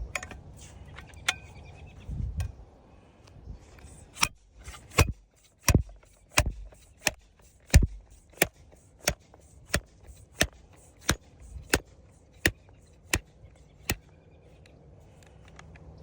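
Standard Golf Hammerstrike golf hole cutter being struck repeatedly: about fifteen sharp impacts at a steady pace of roughly one and a half a second, starting about four seconds in.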